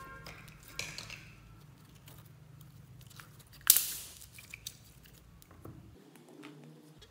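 Hands squeezing and kneading glitter slime: wet squishing with scattered sticky clicks and pops. A loud crackling squelch comes about halfway through and fades out over half a second.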